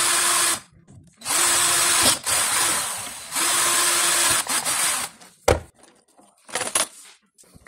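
Cordless drill with a thin bit running in four short bursts of about a second each, drilling into a small aluminium bracket and the plastic glove box damper housing, with a steady motor whine. Two sharp clicks follow near the end.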